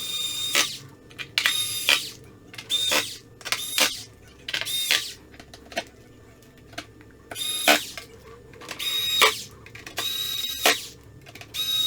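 Small electric screwdriver whining in about ten short bursts, each under a second, as it drives screws during laptop reassembly.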